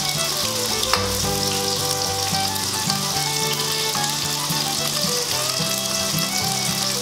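Sausages frying in a non-stick frying pan, with a steady sizzle and one sharp crackle of spitting fat about a second in.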